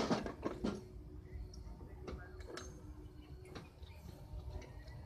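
A handful of light clicks and knocks at irregular intervals, over a low background rumble; no engine is running.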